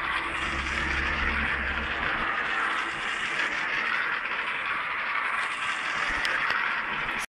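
Small electric toy train running fast around a plastic oval track: a steady whir of its motor and wheels on the plastic rails.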